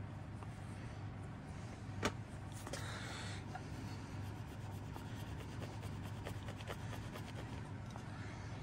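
Soft rubbing of a cloth working metal polish onto a clock part, with a single sharp click about two seconds in and a low steady hum underneath.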